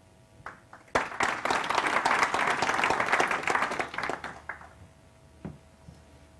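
A small audience applauding, starting abruptly about a second in, lasting about three and a half seconds and tapering off.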